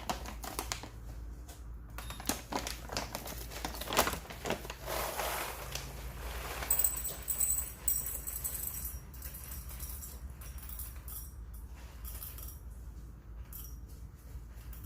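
Whole coffee beans rattling and clicking into a container, in a run of small clicks with a denser rattle about four to six seconds in, as a dose of about 18 grams is weighed out.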